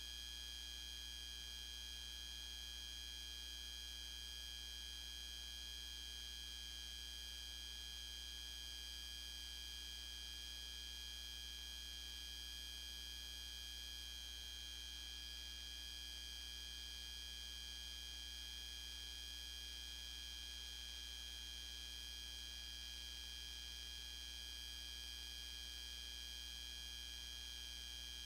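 Steady electrical hum and hiss with several thin high-pitched whines, unchanging throughout, with no parade sound in it: the noise floor of a transfer of silent 8mm film.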